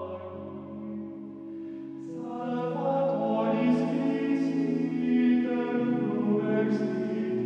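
Slow background music of long held chords, growing louder about two and a half seconds in.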